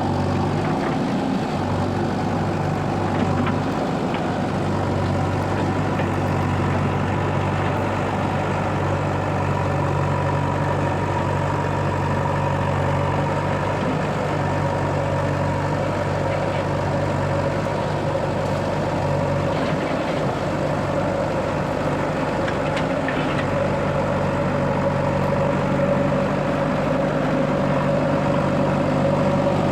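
A heavy diesel engine running steadily, with a slight change in its low tone about two-thirds of the way through.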